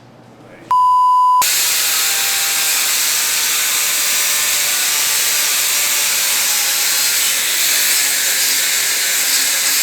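A short, high, steady tone, then a loud steady rush of hissing air that runs on evenly for about eight seconds: compressed air blowing out a workpiece in a fabrication shop.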